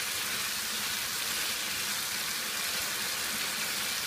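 Chicken karahi frying in a non-stick pan over high heat, a steady sizzle as it is stirred. The sizzle marks the bhuna stage: the last of the water is cooking off and the ghee is separating.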